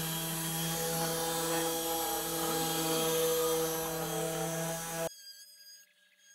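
Desktop CNC router's 120 W spindle motor running steadily with a whine while its bit cuts into the clamped board, and the stepper motors sweeping up and down in pitch as the head moves. The sound cuts off suddenly about five seconds in.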